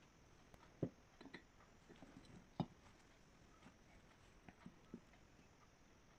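Near silence broken by a dozen or so soft, irregular taps and knocks of small objects being handled. The two loudest come about a second in and just before the middle, and the taps die away for the last second or so.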